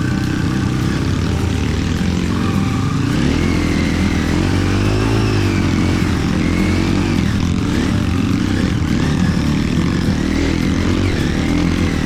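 Trail motorcycle engine running under load, revving up and down so its pitch rises and falls every second or two.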